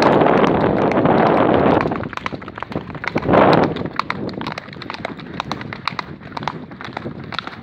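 Horses' hooves beating on a dirt trail as they canter past, heard as quick irregular thuds. A loud rushing noise covers the first two seconds and comes back briefly about three seconds in, after which the hoofbeats stand out more clearly.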